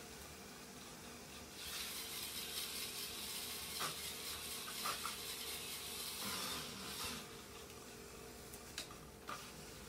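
Treadmill belt running on an incline with Lego Technic motor-driven cars climbing on it: a steady hum with a faint tone underneath. From about a second and a half in to about seven seconds a louder rubbing hiss rises over it, with a few sharp clicks and knocks.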